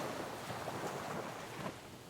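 Sea wave washing back off coastal rocks after breaking, its hiss fading away, with a few small splashes and trickles, the last one near the end.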